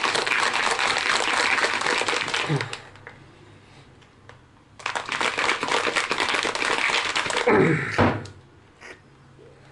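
Ice cubes rattling hard inside a plastic shaker cup as a piña colada mix is shaken by hand, in two bouts with a short pause between them. A brief voice sound comes near the end.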